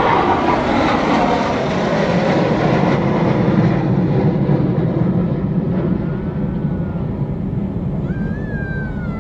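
Jet aircraft engine noise, loudest at the start and slowly fading, as a military jet passes.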